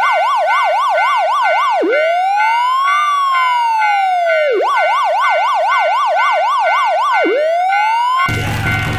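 Police car siren switching between a fast yelp of about four sweeps a second and a slow rising-and-falling wail: yelp, one slow wail, yelp again, then a rising wail that is cut off near the end by music. Steady tones sound underneath.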